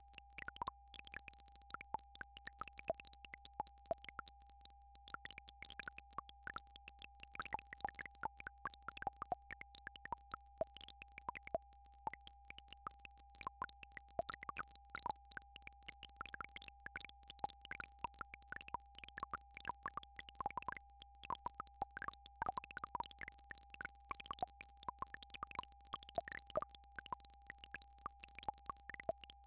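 A steady, unbroken electronic tone of a healing-frequency track, one pure pitch held throughout, with a low steady hum beneath it and irregular short clicks and plinks scattered over it.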